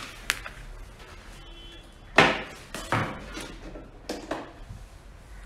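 Knocks and clicks of objects being handled on a tabletop: a sharp click at the start, one loud knock about two seconds in, then a few softer knocks.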